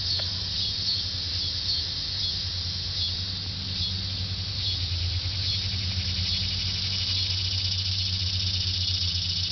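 Insects chirping outdoors: high, regular chirps about once a second at first, becoming a fast, continuous trill from about halfway through, over a steady low hum.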